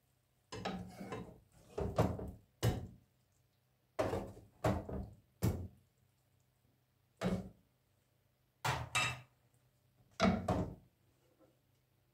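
Serving spoon and dishes knocking and clinking as food is dished up onto plates. It comes as a string of short, separate knocks and scrapes at uneven intervals, with quiet gaps between.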